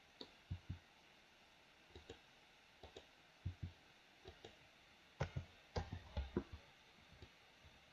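Computer keyboard keys and mouse buttons clicking: scattered short clicks, several in quick pairs, with a denser run about five to six and a half seconds in.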